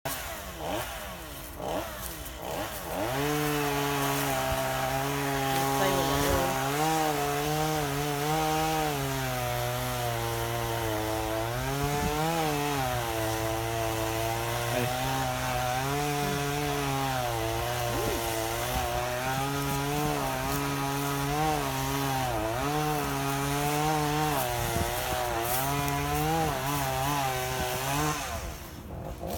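Chainsaw running at high revs and cutting into wood, its pitch dipping and recovering again and again as the chain bogs in the cut. It is quieter for the first few seconds, then comes up to full speed, and drops off about a second before the end.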